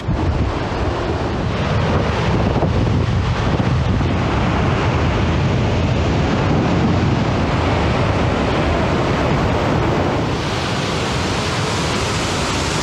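Ocean surf breaking on the shore, a steady rushing mixed with wind buffeting the microphone. About ten seconds in it changes to a brighter, steadier hiss.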